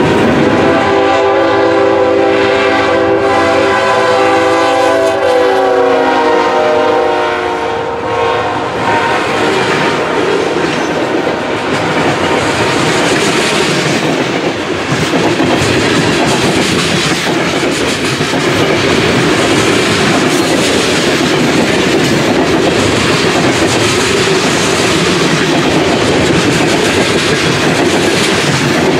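Freight train sounding its multi-note chord horn in one long blast of about seven seconds over the rumble of passing cars. Then freight cars roll by with a loud steady rumble and clickety-clack of wheels over the rail joints.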